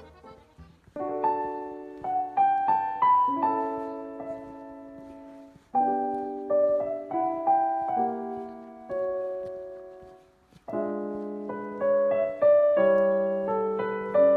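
Background piano music: gentle phrases of struck notes that ring and fade, starting about a second in, with new phrases near six and eleven seconds.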